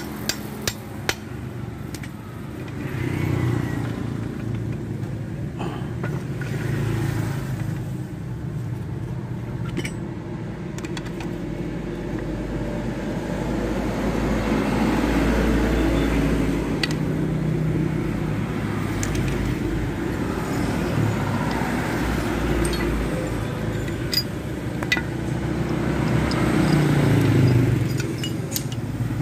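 A few sharp metal taps from a hammer on an aluminium motorcycle crankcase in the first second or so, over a steady low rumble of motor vehicles running that swells and fades, with scattered light metallic clicks of tools and gears.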